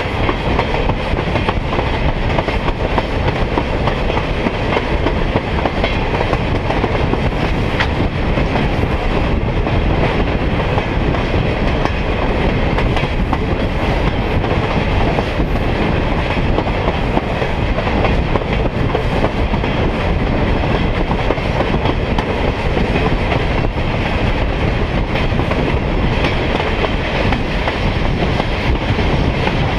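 A passenger train rolling along the track, heard from aboard: a steady rumble of wheels on rail with faint clicks over the joints.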